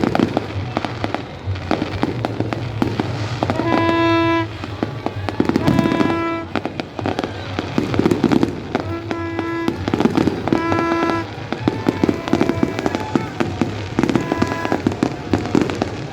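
Fireworks crackling and popping continuously in a dense stream of bangs. Music with long held notes plays over them.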